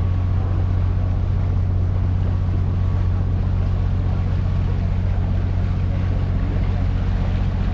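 Motor of an open canal tour boat running steadily under way, a constant low hum with water washing along the hull.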